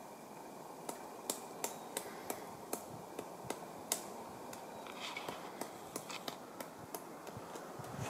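Pileated woodpecker chipping at a dead tree trunk while foraging for insects: single spaced beak strikes, about three sharp knocks a second, starting about a second in, not a fast drumming roll.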